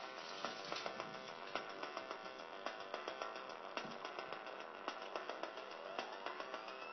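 Korg Monotribe analogue synthesizer playing a sequenced pattern with a steady pulse of about three hits a second. Near the end its pitch sweeps upward.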